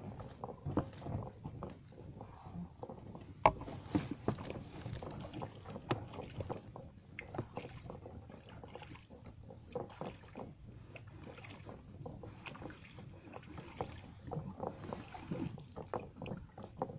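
Handling noises in a small boat: irregular knocks, clicks and rustling as a fisherman works a pike into a keep net, with one sharper knock about three and a half seconds in.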